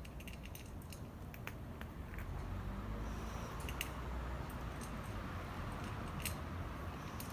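Stray cats chewing their food, with scattered crisp clicks of crunching over a low steady rumble.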